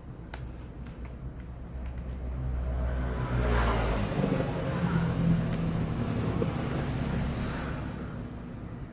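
A motor vehicle passing by. Its engine hum and road noise grow louder a few seconds in and fade away near the end.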